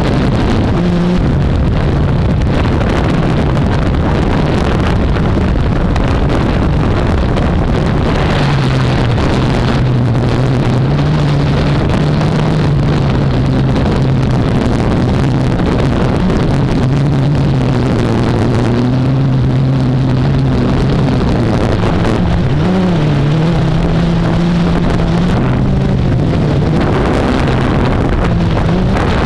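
Blade 350QX quadcopter's electric motors and propellers buzzing steadily, their pitch shifting up and down as they hold the craft against gusts, with wind buffeting the microphone.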